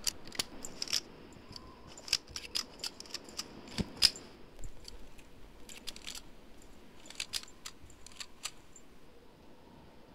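Small-arms gunfire sound effects: a run of short, sharp, thin cracks, a few a second in irregular groups. The loudest comes about four seconds in, and they stop about a second before the end.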